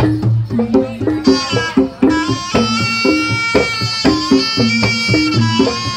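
Javanese jaranan music: hand-drum strokes in a quick, steady pattern, joined about a second in by a wind instrument playing long held notes.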